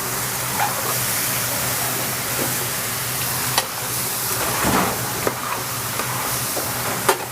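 Chicken pieces sizzling steadily in a hot pan as they are stirred and browned, with a utensil clicking against the pan a few times.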